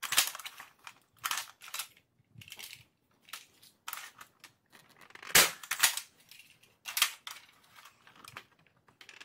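Spring-powered Nerf Longshot fitted with a Jet Blaster kit fired once, with a loud sharp snap about five seconds in. Clacks from the blaster's plastic mechanism come before and after it as it is primed and reloaded between shots.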